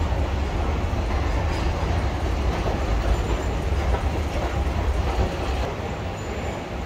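Madrid Metro train running underground: a steady, loud rumble with rail noise that eases a little near the end.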